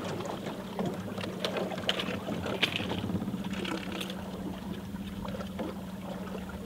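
Steady low hum of a boat's motor running, with scattered short clicks and light knocks over it.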